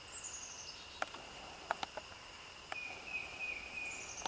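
Outdoor ambience of insects droning steadily, with two short falling bird whistles, at the start and near the end, and a wavering bird call about three seconds in. A few sharp clicks come about one and two seconds in.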